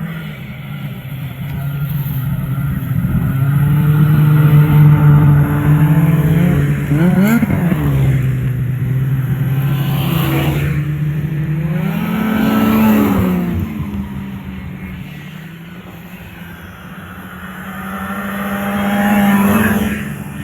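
Snowmobile engines running close by and passing one after another, their pitch rising and falling as they rev and go past. The loudest swells come about five and thirteen seconds in, with another near the end.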